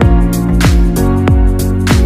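Background music with a steady beat: sustained chords over a deep kick drum that drops in pitch, hitting a little under twice a second.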